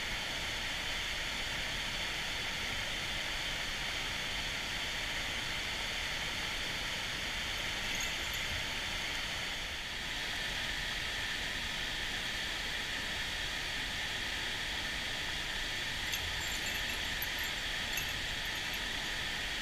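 Mountain stream water rushing steadily over rocks, an even hiss with a brief dip about halfway through.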